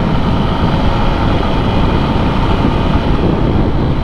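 Motorcycle being ridden on the road: steady wind rush over the rider's microphone mixed with the engine running, at an even level throughout.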